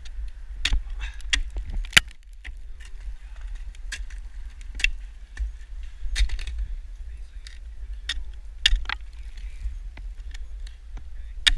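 Ice axe picks and crampon points striking and biting into water ice, sharp irregular strikes a second or few apart, the loudest about two seconds in, with metal climbing gear clinking between them. A steady low rumble runs underneath.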